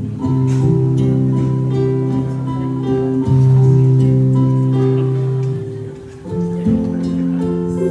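Instrumental music: acoustic guitar playing slow chords with long held notes, the chord changing every second or two and briefly dropping away about six seconds in.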